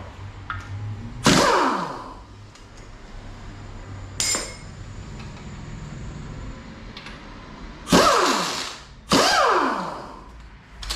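Power tool run in three short bursts on the engine's rod-cap bolts, each stopping abruptly and winding down with a falling pitch, with a light metal clink between the first and second.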